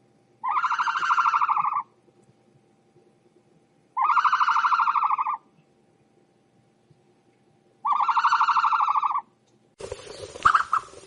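A bird giving three long, harsh, buzzy calls of even pitch, each lasting over a second and spaced about four seconds apart. Near the end a different, noisier animal sound takes over.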